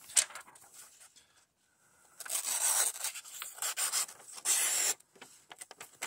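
Kizer Sheepdog XL folding knife's 154CM blade, still on its factory edge, slicing through copy paper in three loud, scratchy strokes. The cut is louder and more ragged than a keen edge would give, the sign of a factory edge that is not very sharp.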